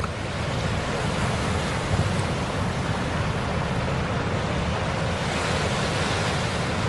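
Steady rush of sea waves and wind, with low wind buffeting on the microphone.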